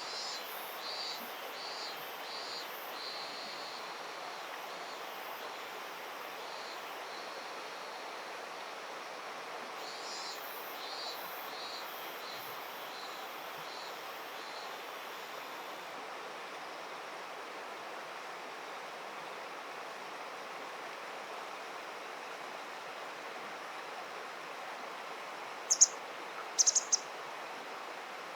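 Steady rush of flowing river water with runs of short, evenly repeated high chirps at the start and again about ten seconds in. Near the end come a few loud, sharp high calls close together.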